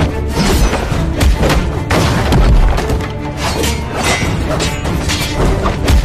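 Dramatic background music with a heavy deep bass, overlaid by repeated thuds, booms and crashing hits from action-scene sound effects.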